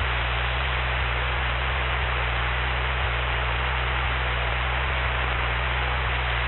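Steady hiss over a low, even hum: the Cessna 172's engine and propeller drone in flight as caught by the separately recorded cockpit audio, with no high tones.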